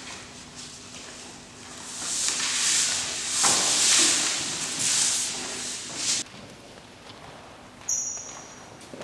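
Footsteps on a hard floor and the swishing rustle of folders being handled and passed across tables. The rustle is loudest in the middle and stops abruptly about six seconds in.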